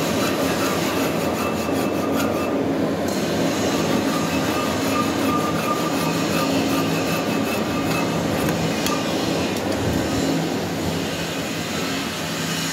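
Metal lathe running steadily, spinning a threaded steel bar, with a flat file rasping against the turning thread to clean it up. The level falls off slightly near the end.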